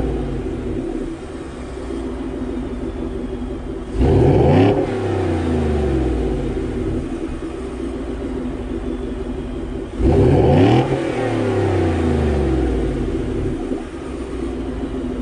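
Ford 5.0 V8 truck engine through a Corsa Extreme exhaust (Corsa Sport with resonator delete), idling with a deep rumble and blipped twice, about four seconds in and about ten seconds in, each rev falling quickly back to idle.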